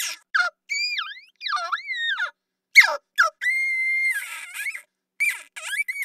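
Monster sound effect: a string of short, high-pitched creature squeals and chirps that swoop up and down in pitch, with one long, steady whistle-like squeal held for about a second in the middle.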